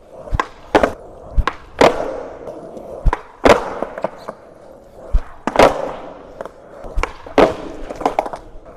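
Skateboard tricks: a series of sharp clacks, mostly in pairs about half a second apart, as the board's tail pops off the ground and the board lands again, with wheels rolling in between.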